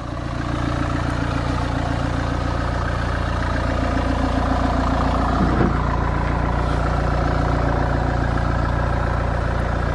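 Small petrol-or-diesel car engine of a Mini Countryman running close by as the car creeps slowly through a tight kerbside manoeuvre. It is a steady hum that builds over the first second and then holds even.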